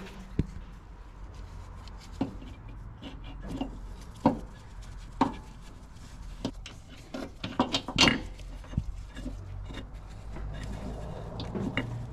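Scattered knocks and clunks of a used engine mount being handled and fitted into place, several in quick succession about eight seconds in, over a low steady hum.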